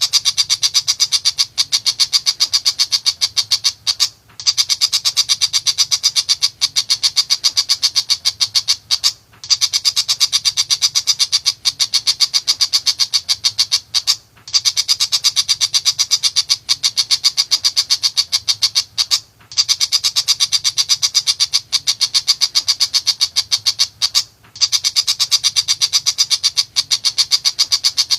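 Tiger shrike song: a rapid chattering run of short, high notes, many to the second, in phrases about five seconds long broken by brief pauses at even spacing.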